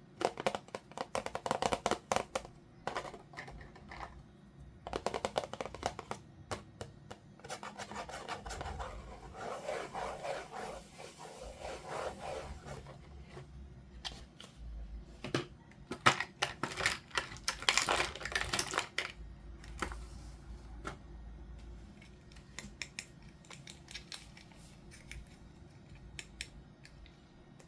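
Toy packaging being handled and opened close to the microphone: irregular rustling and scraping, with many sharp clicks and taps.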